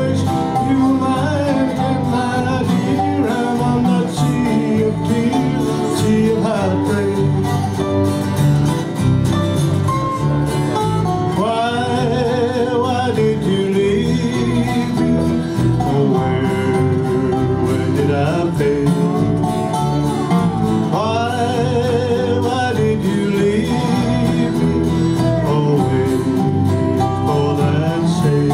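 A small live band playing a country song on guitars and bass guitar, with a steady beat and a lead melody line that bends and wavers in pitch.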